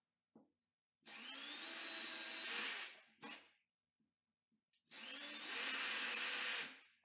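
Ryobi cordless drill with a 3/16 bit drilling two holes into a bathroom wall: two runs of about two seconds each, the motor whine climbing as each run starts, with a short click between them.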